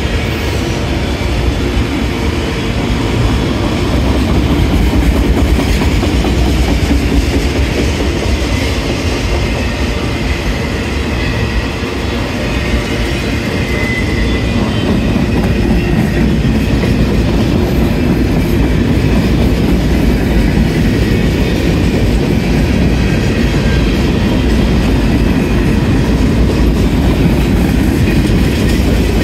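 Freight cars of a CSX mixed manifest train, autoracks and then centerbeam flatcars, rolling past. Their steel wheels run on the rails in a steady rumble and rattle.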